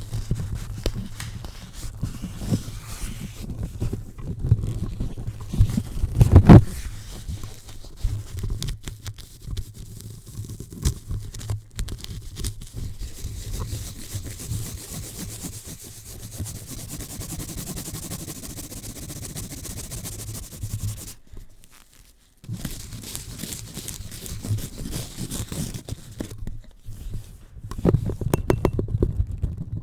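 Close-up rubbing, scrubbing and tapping directly on a microphone, heard as scratchy friction noise with many small clicks. There is a heavy thump about six seconds in and a steadier scrubbing stretch in the middle. The sound cuts out briefly about three quarters of the way through.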